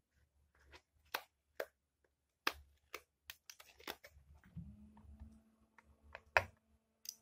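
Glass test tubes clicking and tapping as they are handled out of their packet and one is set into a plastic test-tube rack: a scattered series of light sharp clicks, the loudest near the end. A faint steady hum comes in about halfway.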